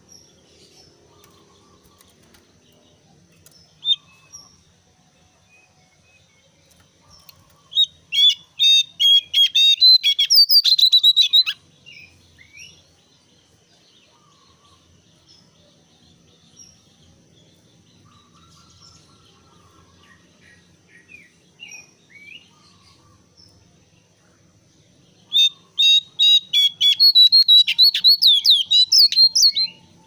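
Caged jongkangan coklat (brown babbler) calling in two loud bursts of rapid, insistent repeated notes, each lasting about four seconds, with faint scattered chirps between the bursts.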